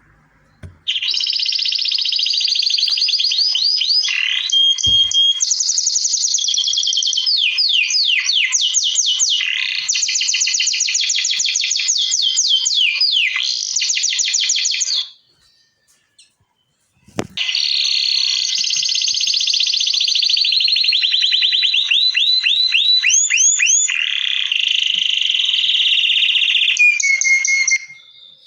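Canary singing: two long runs of rapid, high trills and rolls made of fast repeated notes. A short pause with a single click comes about midway between them.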